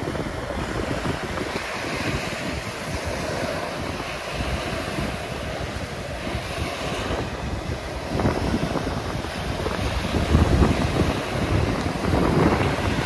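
Small surf breaking and washing up a sandy beach, with wind buffeting the microphone in gusts. The low rumble grows louder about eight seconds in.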